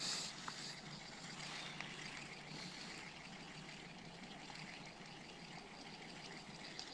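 Faint lakeshore ambience: a steady soft hiss with a few faint ticks, after a brief louder rustle right at the start.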